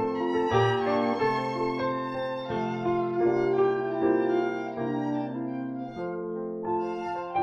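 A small instrumental ensemble of violin, French horn and a small wind instrument playing a slow piece in held notes, with the chords changing every second or so.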